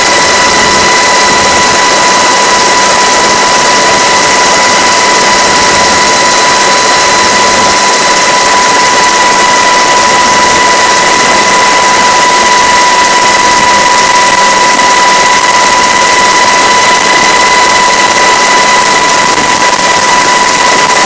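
Inside the cabin of a US Coast Guard MH-60 Jayhawk helicopter in flight: loud, steady engine and rotor noise with a constant high whine running through it.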